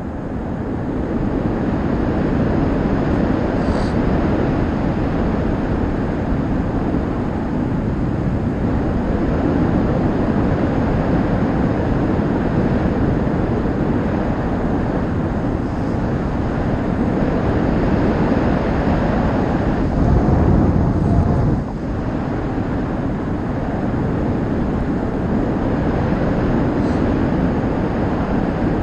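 Wind rushing over the microphone of a camera on a paraglider in flight: a steady, loud rush of airflow, swelling briefly about twenty seconds in and then dropping off suddenly.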